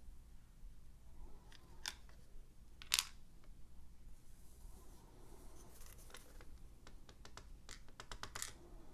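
Small metallic clicks and taps from handling a disassembled Evva ICS lock and its tools, with one sharper click about three seconds in and a quick run of clicks near the end.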